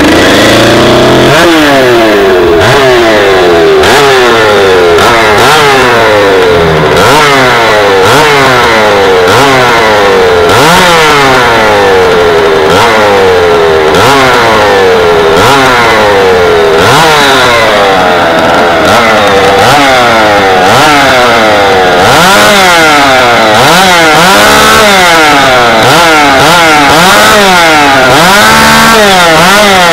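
Stock-class two-stroke chainsaw running at high revs without a break, its engine pitch dipping and rising again and again, about once a second.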